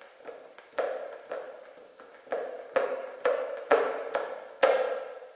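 A basketball being slapped into spin and caught again and again on one hand during freestyle hand rolls. Each contact is a sharp smack with a short hollow ping from the inflated ball, about every half second at an uneven pace.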